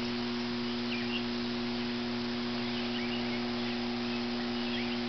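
Steady electrical hum: a low drone of a few unchanging tones over a light hiss, with a few faint high chirps here and there.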